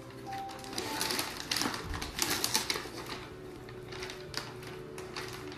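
Tissue paper crinkling and rustling in uneven bursts as a mini pig noses and roots through it.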